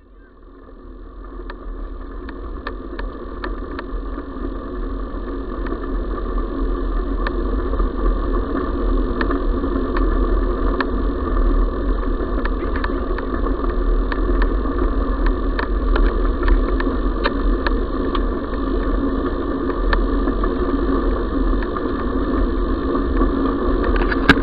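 Wheels rolling along a gravel track, a steady hum and rumble scattered with many sharp little clicks and rattles. It fades in over the first few seconds.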